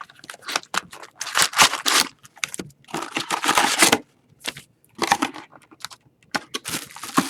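Packaging of a sealed Artifacts hockey card hobby box being torn open and handled: irregular tearing and crinkling of wrapper and cardboard, heaviest from about one to four seconds in.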